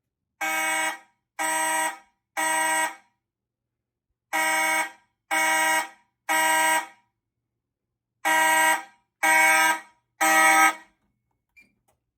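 Fire alarm horns, a Federal Signal 450D horn and a Simplex 4903-9215 horn-strobe, sounding together in the temporal code-3 evacuation pattern: three half-second blasts about a second apart, a pause of about a second and a half, repeated three times. The pattern is a fire alarm panel in alarm after a manual pull station was pulled.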